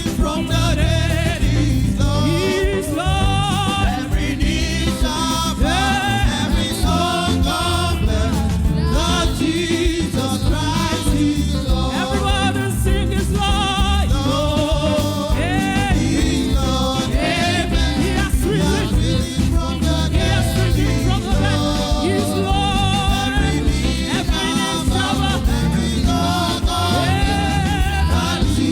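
Live gospel praise music: singers with a band playing a steady beat and strong bass line.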